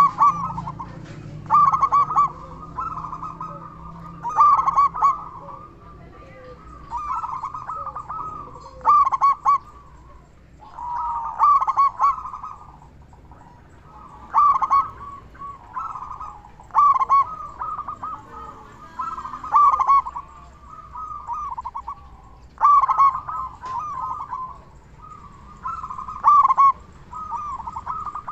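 Zebra dove cooing: repeated phrases of quick, rolling coos, a loud phrase every two to three seconds with softer calling in between.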